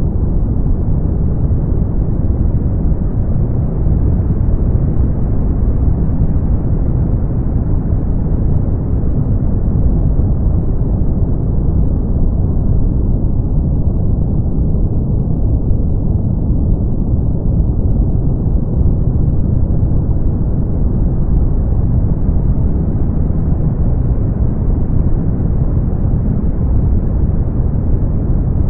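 Brown noise: a steady, deep, even hiss with most of its weight in the low end, growing slightly duller about halfway through and then brightening again.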